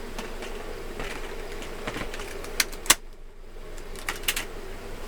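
Sharp plastic clicks and knocks from a Dyson Ball Multi Floor upright vacuum being handled as a release button is pressed and a part is taken off. The two loudest clicks come close together a little under three seconds in, and a few more follow about a second later.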